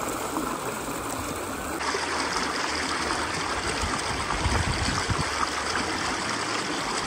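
Stream water rushing steadily, a dense even hiss with no break.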